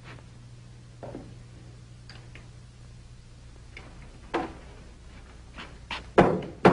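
Footsteps on a hard floor, a few sparse taps, then sharp knocking on a wooden door near the end, two raps about half a second apart.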